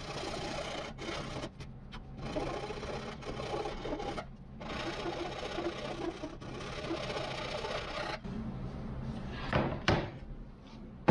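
Abrasive rubbing on wood in repeated strokes of a second or two with short pauses between, like hand sanding or rasping, with a couple of sharper knocks near the end.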